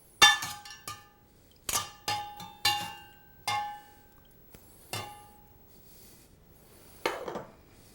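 Kitchen dishware clinking: about seven separate ringing knocks and clinks, a second or so apart, as chicken breasts are put into the marinade dish.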